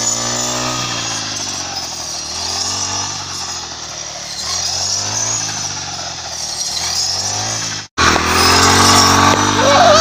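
Petrol brush cutter with a reaper attachment running while cutting standing wheat, its engine note rising and falling over and over as the blade bites into the stalks. About eight seconds in, the sound cuts out for an instant, then an engine runs on louder and steadier.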